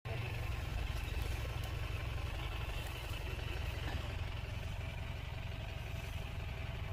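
Vehicle engine idling, a steady low hum.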